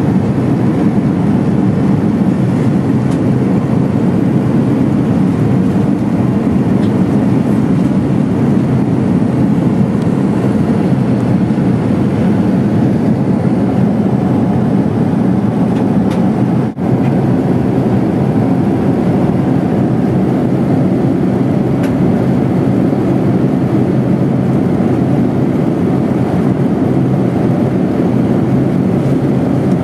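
Steady cabin noise inside a Boeing 787-9 at cruise: a constant low rumble of engines and airflow. It drops out for an instant once, a little past halfway.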